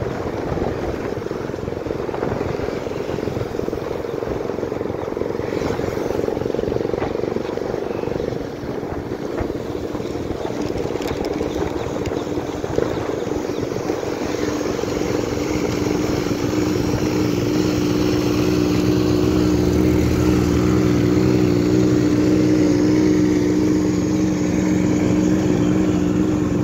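Motorcycle engine running at a steady cruise, heard under heavy wind buffeting on the microphone; the engine's steady hum comes through more plainly from about halfway on.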